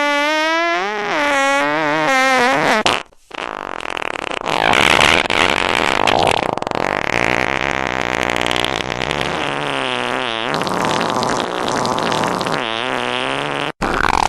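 Fart sound effects, one after another: long, pitched, wavering blasts that rise and fall. There is a short break about three seconds in and another near the end.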